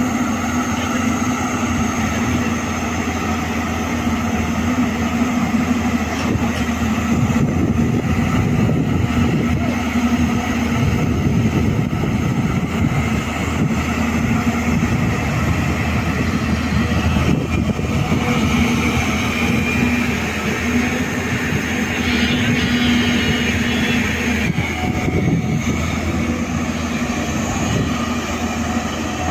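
Hyundai Robex 215 crawler excavator's diesel engine running steadily under load as it digs and lifts mud, with a constant low hum. A higher whine joins in for several seconds past the middle.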